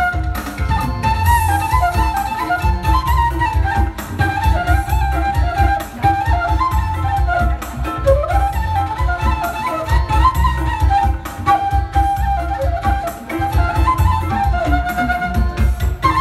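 Music: a single wandering melody line with sliding notes over a heavy, pulsing bass beat.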